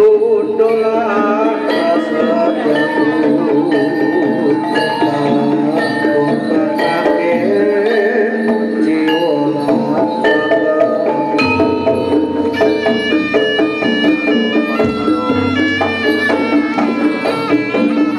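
Javanese jaranan dance music: drums and gamelan percussion under a held, reedy wind-instrument melody that steps from note to note.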